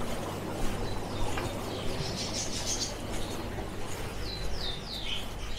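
Caged pet birds chirping, with a few quick falling chirps near the end, over a steady low hum.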